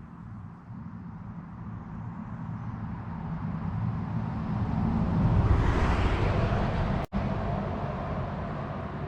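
A car passing by on the road: tyre and engine noise that builds over several seconds, peaks about five and a half seconds in, then fades away. The sound cuts out for an instant about seven seconds in.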